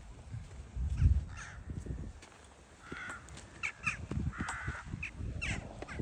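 Crows cawing, several short harsh calls a second or two apart, with a low thump about a second in.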